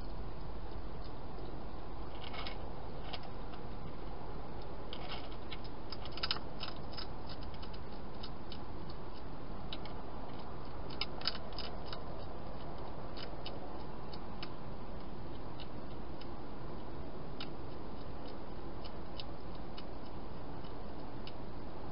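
European hedgehog eating inside a plastic feeding box: irregular sharp crunching clicks, in clusters about 2, 5 to 7 and 11 to 12 seconds in and sparser after, over a steady hiss.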